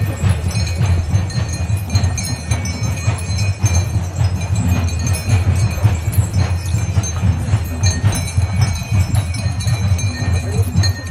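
Bells and chains on a caparisoned temple elephant jingling and clinking as it walks, with ringing metallic tones throughout, over a loud steady low rumble.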